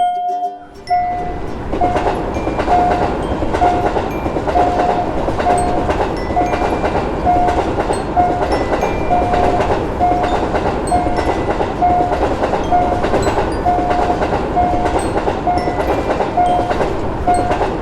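Level-crossing alarm sounding a single repeated beep about once a second, while a train passes with a rushing, clattering run of wheels on track that starts about a second in.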